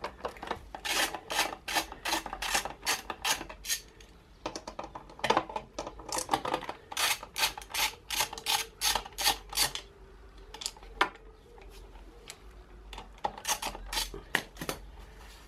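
Ratcheting screwdriver undoing the screws of the plastic windscreen mounting brackets. Runs of quick rasping clicks come about three a second, in several bursts with short pauses between them.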